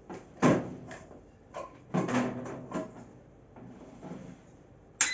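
Knocks and clatter of an electric pressure cooker being handled and set up. Near the end comes a sharp click and then a short electronic beep as it is switched on.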